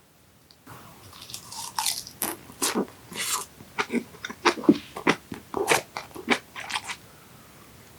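Close-miked eating sounds: a person chewing and biting food, a quick irregular string of sharp wet clicks and smacks.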